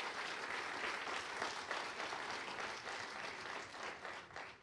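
Congregation applauding, a steady patter of many hands clapping that fades away near the end.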